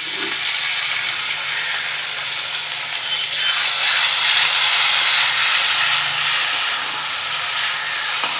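Wet ground masala paste (ginger, garlic, cumin, onion, cardamom and clove) sizzling loudly as it hits hot oil and browned onions in a steel kadhai and is stirred with a spatula. It is a steady hiss that swells a little in the middle.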